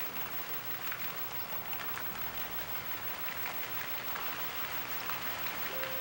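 A flock of waterbirds taking off from the water: a dense, rain-like pattering of wings and feet slapping the surface.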